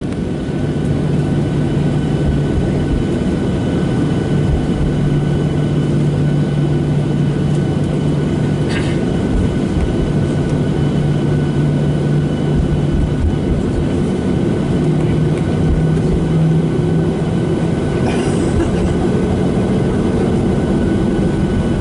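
Cabin noise of a Boeing 737-800 rolling slowly on the runway, heard from a window seat over the wing: a steady rumble with the hum of its CFM56-7B engines at low thrust. The engine hum rises a little in pitch in the last few seconds.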